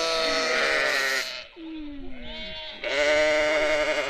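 Sheep bleating: a long call that breaks off about a second in, a softer falling call, then another long bleat starting about three seconds in.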